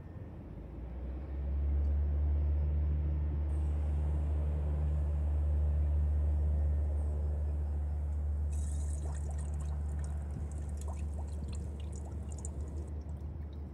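Air and 5606 hydraulic fluid gurgling through a clear hose between a Cessna 150's nose gear oleo strut and a jar of fluid as the strut is worked by hand, filling the strut by letting it draw in fluid. A low steady bubbling sets in about a second in, and fine crackling bubbles follow in the last few seconds.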